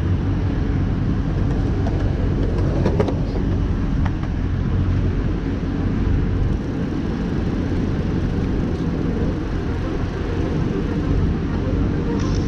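Steady low rumble of wind buffeting the microphone, with tyre noise from a bicycle rolling along pavement. A brief click about three seconds in.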